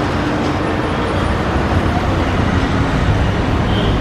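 Steady loud rumble of vehicle noise, even throughout.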